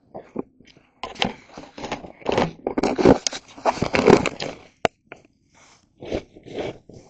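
Dry kindling crunching, scraping and crackling in irregular bursts, with a few sharp snaps, as a small fire is fed and coaxed to catch.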